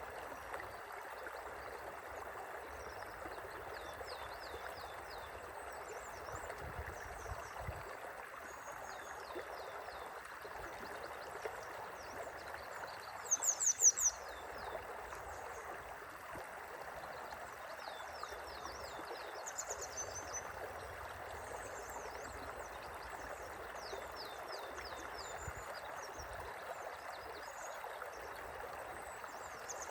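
Steady rush of a gently flowing river, with short high chirps scattered over it; the loudest, a quick run of about six chirps, comes about halfway through.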